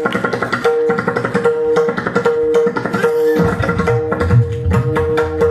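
Pakhawaj played solo in fast, dense strokes over a repeating melodic accompaniment line. Deep bass strokes from the drum's left head join about three and a half seconds in.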